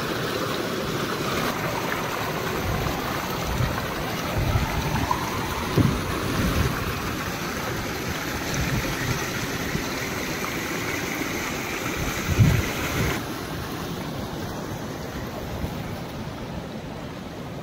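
Rain-fed stream water rushing and splashing through a small rocky cascade, a steady rush. A few low thumps come through, the loudest about twelve seconds in, and the rush turns duller soon after.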